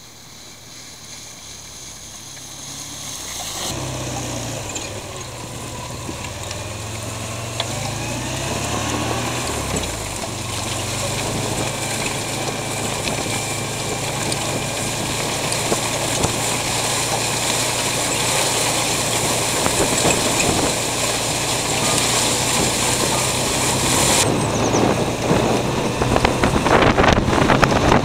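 Engine of a small open-frame vehicle running as it is driven, growing louder as it approaches, then heard close up with its pitch rising and falling for a couple of seconds before it settles into a steady run. Wind buffets the microphone near the end.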